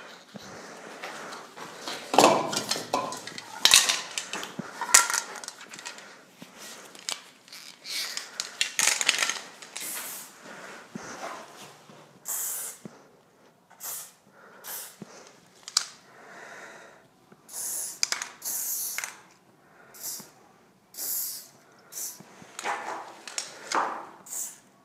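Aerosol spray-paint can hissing in short separate bursts, about one a second, through the second half. Before that, louder irregular knocks and scuffs.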